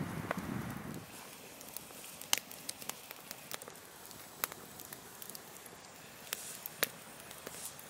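Wood fires of split logs and twigs crackling, with sharp, irregular pops, a few of them louder, over a faint hiss. A low rustle is heard in the first second.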